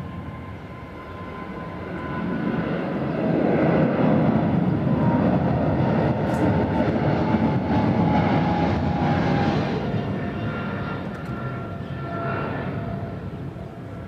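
Jet airliner's engines at takeoff power as it passes, the noise swelling to a peak for several seconds and then easing off, with a whine that slides slowly down in pitch.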